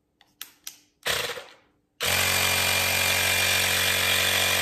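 Battery-operated handheld tire inflator: a few clicks as its PSI is set, a short hiss about a second in, then about two seconds in its compressor motor starts and runs steadily.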